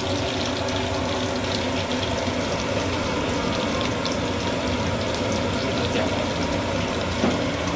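Pork collar deep-frying in a pot of hot oil, steady sizzling and bubbling as the pieces start to turn golden, with a low steady hum under it.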